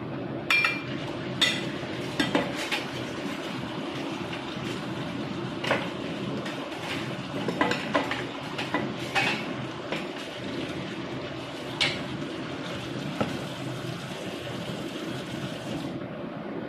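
Bamboo shoots and beef simmering in a covered pan under a glass lid, a steady bubbling hiss, with scattered sharp clinks and knocks of cookware, several of them in the first three seconds.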